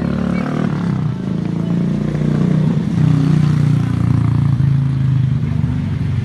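A motor vehicle's engine running close by, its pitch sliding up and down, loudest through the middle.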